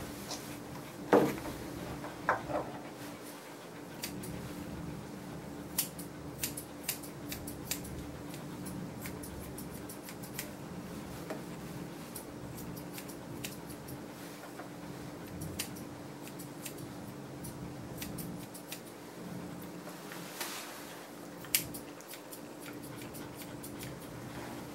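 Grooming shears snipping a small dog's hair, short runs of quick cuts with pauses between, over a steady low hum. A sharp knock about a second in is the loudest sound.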